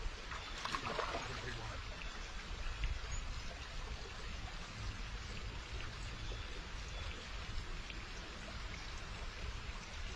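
Steady rush of running water, trickling like a small stream, with a low rumble underneath.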